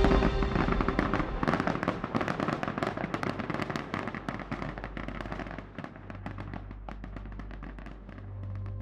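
Rapid crackling, dense at first and thinning out as it fades over about six seconds, over a low sustained musical drone.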